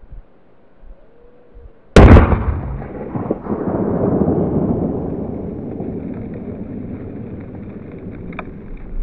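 A firecracker exploding under a metal cooking pot: one sharp blast about two seconds in that throws the pot high into the air, followed by a long rumble that slowly dies away.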